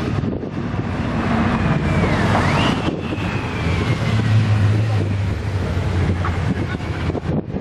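Motorcycles passing close, their engines' low steady hum loudest about four seconds in, over wind buffeting the microphone.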